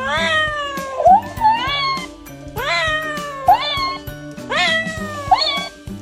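A cat meowing over and over, about once a second, each meow rising sharply and then falling in pitch, over background music with a steady bass line.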